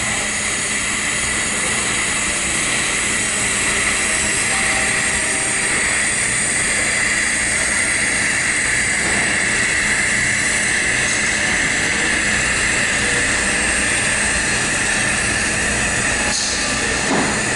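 TIG welding on pipe: a steady hiss from the arc and shielding gas over a constant low hum, with a brief change near the end.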